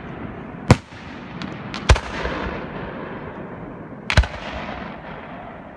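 Aerial firework shells bursting: sharp bangs about a second in, about two seconds in, and a doubled bang just past the four-second mark, with a steady rush of noise between them.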